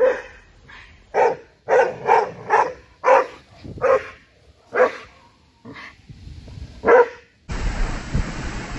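A muzzled Border Collie barking about ten times in short, sharp, irregular barks, lunging at a person: reactive, aggressive barking. Near the end the sound cuts to a steady outdoor rumble and hiss.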